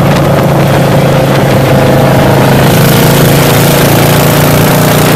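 Motorcycles running steadily at highway cruising speed, a low engine hum under heavy wind rush on the microphone.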